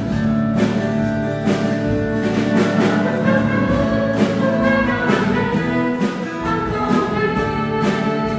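Instrumental church music: sustained chords over a steady beat.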